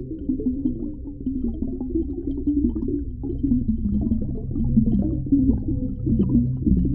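Underwater ocean ambience, muffled and low: a deep steady rumble of water with wavering low tones and many small bubbling crackles.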